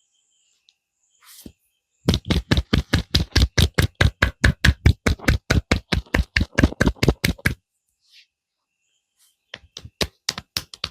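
Rapid, even hand strikes of a percussive head massage, about five or six a second for roughly five seconds. After a short pause a second, slightly quicker run begins near the end.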